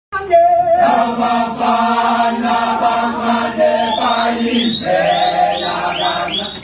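Male choir singing unaccompanied in several voice parts, with a low held note under the melody. In the second half, short high rising calls repeat in quick succession over the singing.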